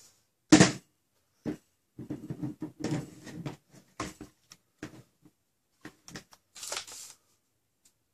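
Clear plastic shell parts and a red aluminium barrel of a Worker Prophecy blaster kit being handled and fitted together: a sharp click about half a second in, then a run of small plastic knocks and rattles, a few more clicks, and a short scrape near the end.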